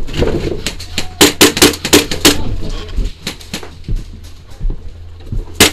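A fast string of about eight sharp knocks in just over a second, then a single loud crack near the end: airsoft fire in a small wooden room.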